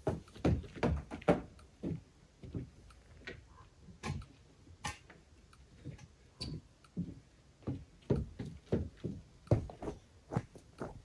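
Footsteps on wooden steps and deck boards: a run of irregular knocks and thumps as someone climbs up, walks about and comes back down.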